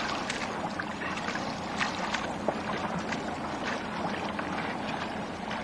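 Water lapping and splashing against a kayak, with many small irregular splashes over a steady wash.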